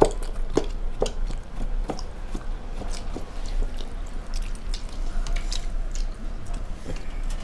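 People chewing and biting into soft steamed chicken momos, with wet mouth clicks and squelches coming irregularly, several a second at times.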